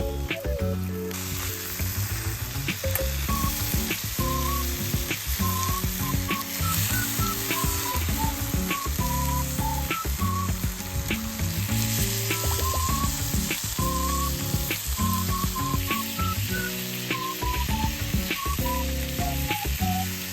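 Meat sizzling as it cooks over a Swedish torch, a steady frying hiss that starts about a second in, under background music with a melody and bass line.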